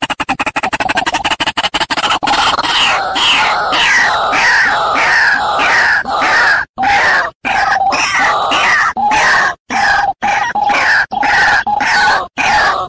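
White-breasted waterhen calls played as a trapping lure: loud, harsh, repeated croaking notes, each falling in pitch, about two a second with brief breaks. A rapid stuttering pulse runs under the first two seconds before the calls begin.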